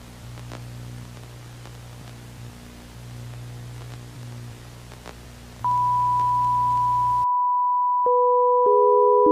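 Television static hiss with a low electrical hum and a few faint crackles. About five and a half seconds in, a steady high test-tone beep starts. The static cuts off abruptly a couple of seconds later, and steady synthesizer tones enter near the end.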